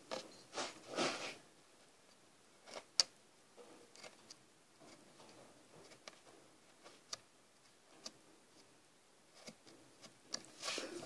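Hand woodcarving tool working the wood: a few short scraping strokes at the start and near the end, with scattered light clicks of the blade in between.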